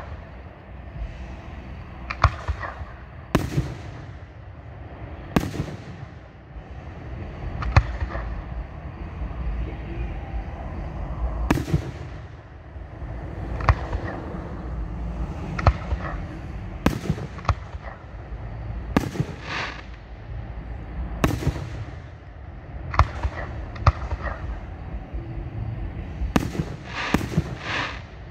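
Aerial fireworks display: sharp bangs of shells launching and bursting, about one every one to two seconds, coming in quicker pairs near the end, over a low rumble.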